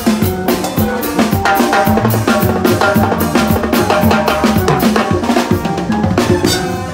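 Timbales played fast with sticks in a live salsa band: a dense run of strokes on the metal-shelled LP timbales, with cymbals, over held bass notes.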